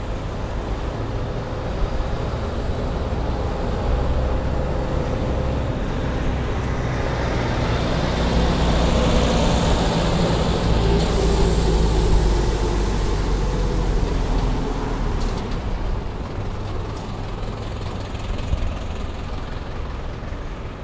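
Heavy road vehicle's engine running close by, growing louder to a peak about halfway through and then fading, with a burst of hiss about eleven seconds in.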